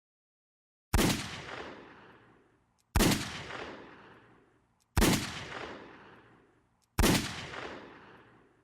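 Four single gunshots, evenly spaced about two seconds apart, each cracking sharply and dying away in a long echoing tail.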